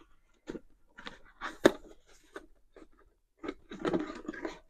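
A rigid cardboard gift box being handled and opened: light taps, one sharp click a little under two seconds in, and paper and card rustling near the end.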